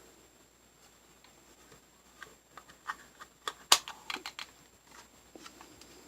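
A run of sharp plastic clicks and knocks from handling a small RC toy buggy, loudest about three and a half seconds in, with faint room tone around them.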